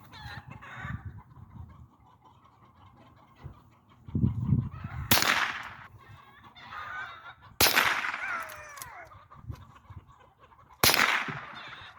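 Three shots from a .22 lever-action rifle, the second about two and a half seconds after the first and the third about three seconds later, each with a short ringing tail.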